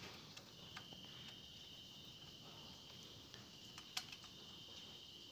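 Near silence with a steady high-pitched insect trill, likely a cricket. Over it come a few faint metallic clicks from an L-shaped hex key turning the bolts of a motorcycle's plastic exhaust cover; the sharpest click comes about four seconds in.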